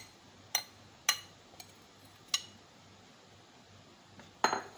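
Spoon knocking against a cooking pot of chicken: a few sharp, separate clinks, then a longer, louder clatter near the end.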